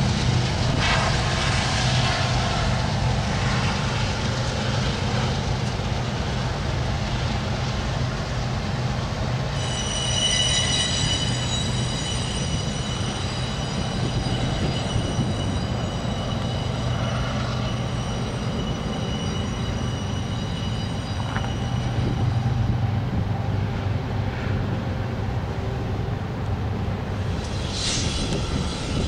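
BNSF double-stack freight train rolling past with a steady low rumble of diesel locomotives and rail cars. About a third of the way in, the wheels set up a high, steady squeal that lasts some twelve seconds before dying away.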